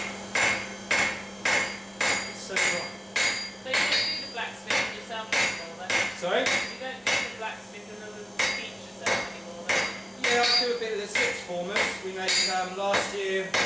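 Hand hammer striking a red-hot steel bar on an anvil, about two blows a second, each with a short metallic ring. The blows ease off briefly about midway and then resume.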